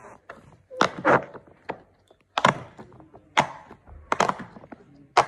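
Bubbles of a silicone pop-it fidget toy being pressed through one after another: a string of short, irregularly spaced pops, one or two a second.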